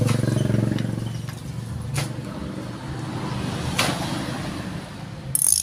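A road vehicle's engine running as it goes by, fading away over the first second or so. Then two sharp metallic clicks from work on a motorcycle front fork, and a short high hiss near the end.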